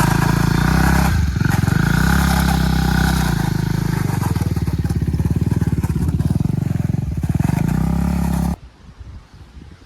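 Motorcycle engine running close by, its note rising and falling with the throttle. It cuts off abruptly near the end.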